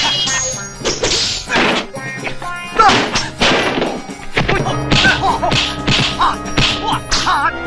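Kung fu film fight sound effects: a quick run of dubbed punch and kick whacks and swishes, the loudest hit about three seconds in, over a backing score.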